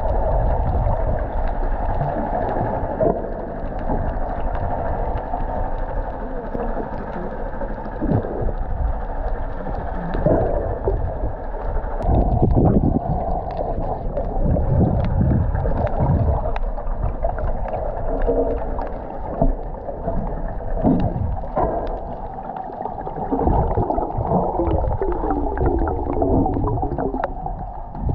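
Muffled gurgling and sloshing of water around a hand-held camera in the water, with irregular splashes.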